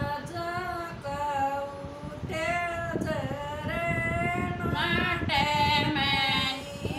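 Women singing a Haryanvi folk song together without instruments, in long, gliding held notes that grow louder about five seconds in.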